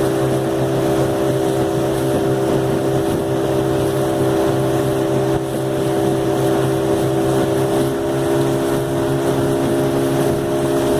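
15 hp outboard motor running steadily under way, a constant engine drone over wind noise.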